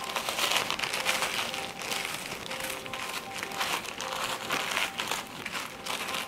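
Ritz crackers being crushed: a dense, irregular run of small crunches and crackles.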